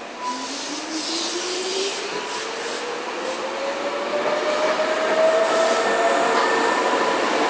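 Hankyu 3300 series electric train pulling away from the platform: a whine rising steadily in pitch as it gathers speed, over growing running noise from the wheels. A short hiss comes about a second in.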